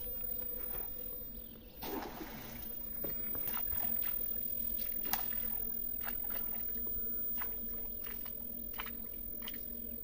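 A snail rake thrown out on a rope hits the pond with a splash about two seconds in. Water sloshes and there are scattered light knocks as the rope is drawn back in.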